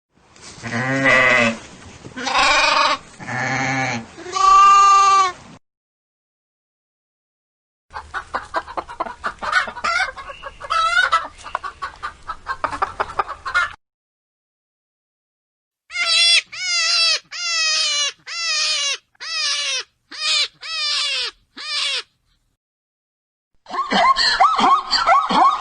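A run of separate animal sound effects cut apart by dead silence. First come four long, wavering bleats, then a rapid string of short pulsed calls, then eight short calls that slide downward in pitch, and near the end a busy run of calls begins.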